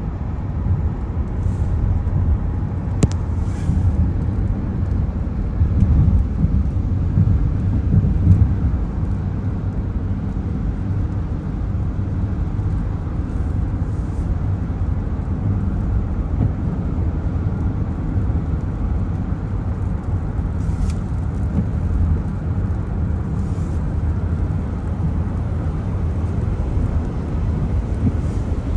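A car driving on wet roads in the rain: a steady low rumble of tyre and road noise. A sharp click sounds about three seconds in and another about twenty-one seconds in.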